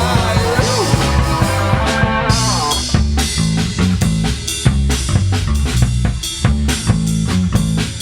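Rock band playing with drum kit, bass and guitar. About three seconds in, the sustained higher part with its bending notes cuts away, leaving the drums and bass playing a steady beat.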